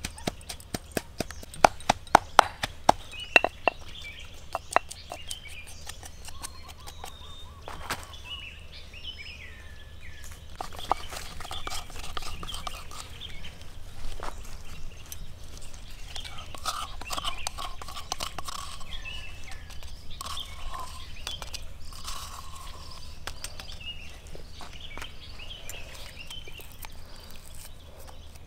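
Stone pestle pounding chilies in a stone mortar: a quick run of sharp knocks over the first five seconds or so. After that, birds chirp on and off.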